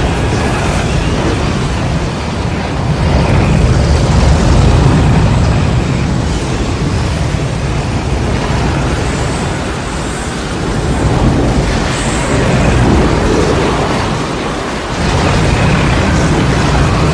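Tornado sound effect: loud, continuous wind noise with a heavy low rumble, swelling and easing in loudness several times.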